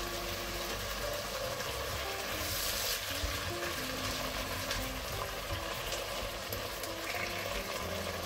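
Sofrito of onion, carrot, green pepper, celery and chopped tomato sizzling steadily in olive oil in a pot, with soft background music.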